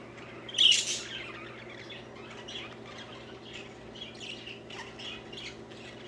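Pet budgerigars chattering: one loud squawk about half a second in, then a run of short, high chirps.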